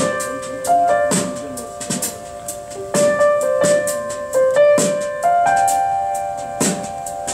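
Recorded music played back over Wilson Alexandria XLF loudspeakers: an instrumental piano passage between sung verses, with struck chords about once a second that ring on.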